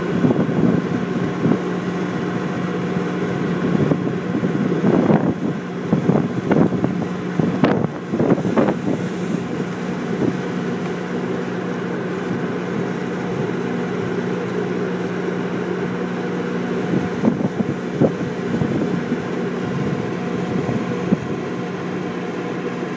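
Engine generator powering induction stripping equipment, running with a steady hum. A cluster of scrapes and knocks a few seconds in as tools work loosened coal tar off the steel tank lid.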